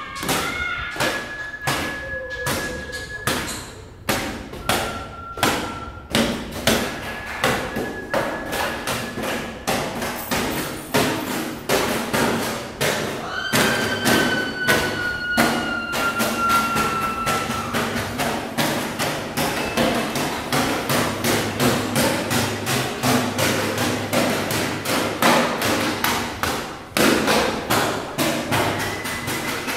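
Improvised sound-art percussion: rapid knocks and thuds several times a second, growing denser after the first few seconds. A few held high tones sound over it, the longest sliding slightly down in pitch about halfway through.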